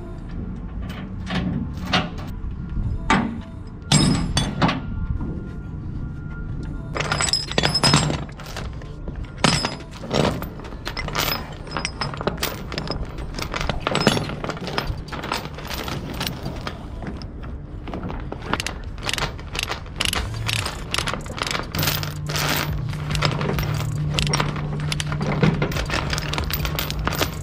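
Steel transport chain clanking and rattling against steel plates as it is laid out and hooked to a ratchet binder: many sharp, irregular metal knocks, closer together in the second half. Background music plays underneath.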